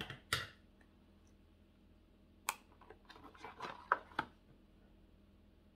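Scissors trimming a piece of paper: two quick snips at the start, another about two and a half seconds in, then a run of small snips and paper rustling for a little over a second.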